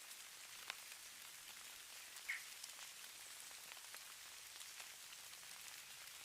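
Falling-snow ambience: faint light precipitation on a surface, a steady soft hiss with scattered light ticks of landing flakes and drops. One brief high note sounds about two seconds in.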